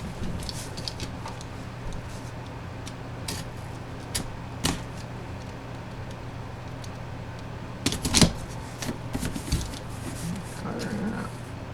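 Funko box packaging being opened and handled by hand: scattered clicks, taps and rustles of cardboard and plastic, busiest about eight seconds in, over a steady low hum.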